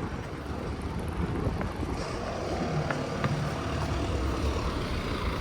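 Bus engine running with a steady low rumble that slowly grows louder, with a few faint clicks over it.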